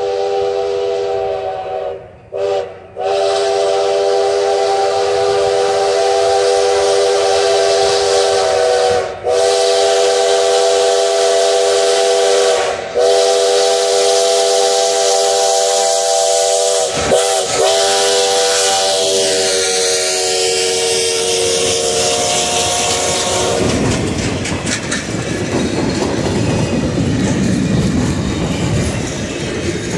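Locomotive chime whistle, taken to be US Sugar 148's steam whistle, blowing a long, loud series of blasts broken by a few brief gaps. About three quarters of the way through the whistle stops, and the train's wheels rumble and clack over the rails as it rolls by.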